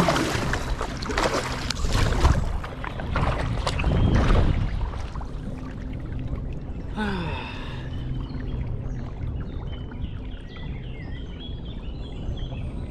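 Kayak paddle strokes dipping and splashing in the water for the first few seconds, then the paddle goes still and the kayak glides with a quieter wash of water along the hull.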